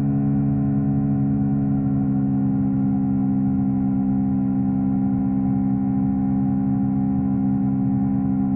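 Yamaha R3 parallel-twin engine running at a steady, unchanging engine speed while cruising, a constant low drone.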